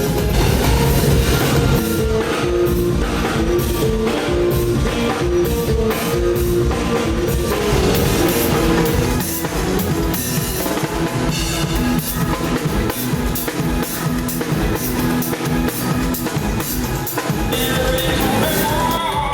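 Live band playing rock music: drum kit with a steady bass drum beat, bass, and guitar.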